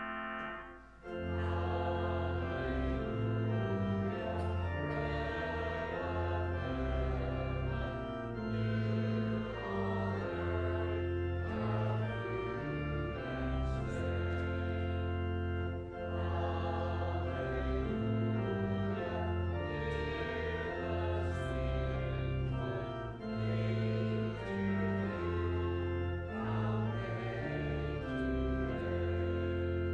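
Two-manual church organ playing a hymn in slow, sustained chords over a steady bass line. The chords change every second or two, after a short break about a second in.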